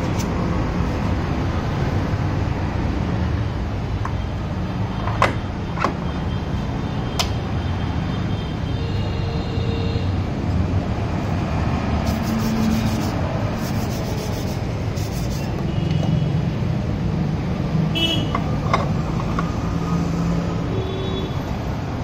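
Steady road-traffic and workshop background noise, with a few sharp metal clinks about five to seven seconds in and again about eighteen seconds in as scooter CVT clutch parts are handled and fitted.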